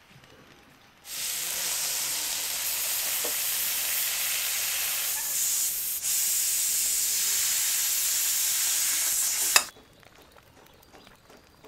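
Steady, loud hiss of a blackened pot cooking over a wood fire, starting abruptly about a second in and cutting off suddenly near the end with a sharp click.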